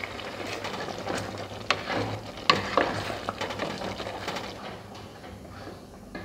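Wooden spoon stirring strawberry jam boiling in a pot, with a steady sizzle of bubbling and a few sharp knocks in the first three seconds.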